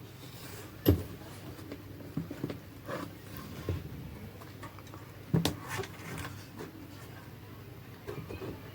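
Knocks, clicks and scrapes of a home theater subwoofer cabinet's back cover being pulled off and handled, with two louder knocks about a second in and about five seconds in.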